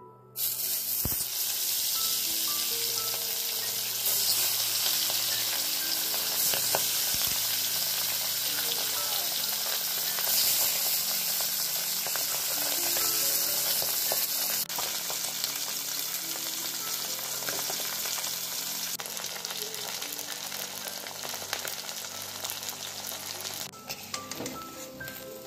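Small whole fish sizzling loudly as they shallow-fry in hot oil in a metal kadai. The sizzle starts suddenly as the fish go into the oil about half a second in, then eases somewhat after about fifteen seconds and again near the end.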